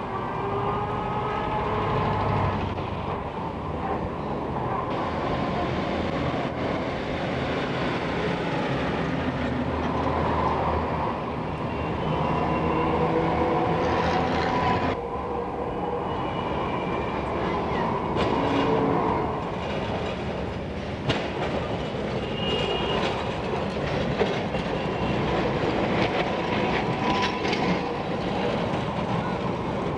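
Diesel street tram running on its rails: a steady rumble with wheel clatter over the track and short horn-like toots now and then. The low rumble drops away suddenly about halfway through.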